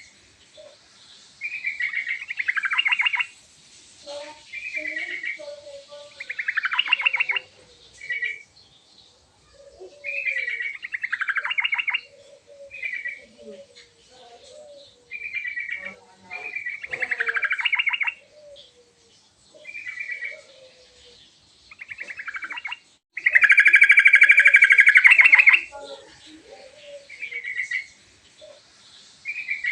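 Yellow-vented bulbul (trucukan) singing: short, bubbly phrases repeated every second or two, many dropping in pitch at the end, with softer low notes between them. About three-quarters of the way through comes one longer phrase, the loudest of the run.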